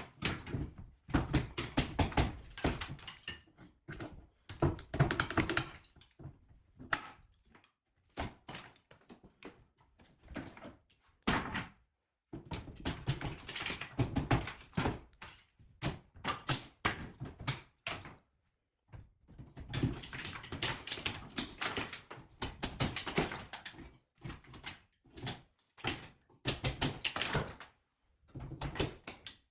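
Repeated knocks, thuds and scraping of hand demolition: plaster and ceiling being broken out and falling, in bursts with short pauses between.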